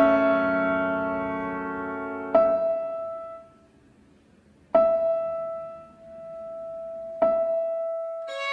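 Slow piano music: a chord fades out, then single high notes are struck about every two and a half seconds, each left to ring and die away, with more notes coming in near the end.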